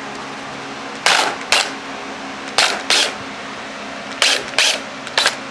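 Cordless drill with a countersink bit spinning in short trigger bursts as it bites into the tops of pre-drilled holes in a wooden block, tapering them slightly. Seven brief bursts, mostly in pairs.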